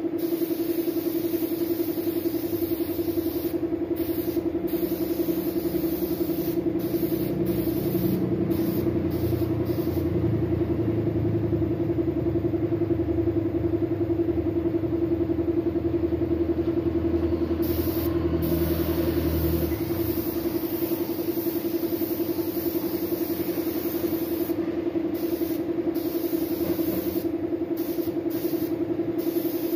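Air compressor running with a steady hum, feeding a gravity-feed paint spray gun whose air hisses in short spurts as the trigger is pulled and released, with a pause of several seconds midway.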